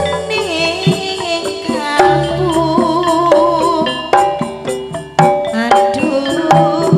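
Javanese gamelan ensemble playing campursari: struck bronze metallophones and kettle gongs ringing in a steady rhythm over low kendang drum strokes, with a wavering melody line above.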